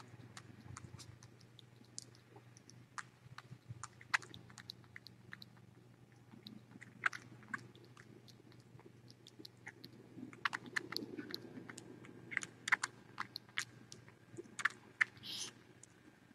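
A tiny kitten suckling on a feeding-bottle nipple: faint, irregular wet clicks and smacks, busier in the second half, with a short high squeak near the end.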